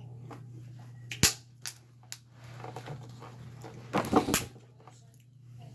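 Eating sounds from a seafood boil: a few sharp clicks and cracks, the first about a second in and two more within the next second, then a short muffled sound around four seconds in, over a steady low hum.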